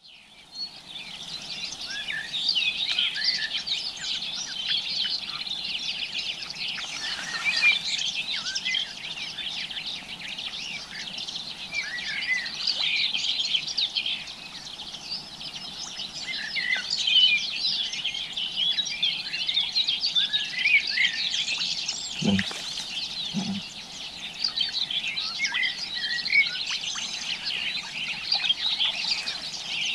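Many songbirds singing at once: a dense, unbroken chorus of overlapping chirps and trills. Two short low thuds about a second apart sound a little past two-thirds of the way through.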